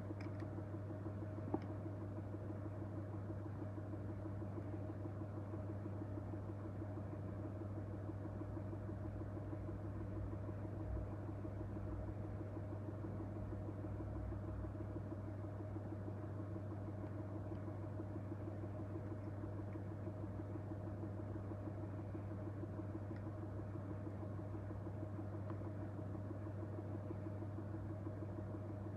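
Steady low hum, unchanging throughout, with one sharp click about a second and a half in.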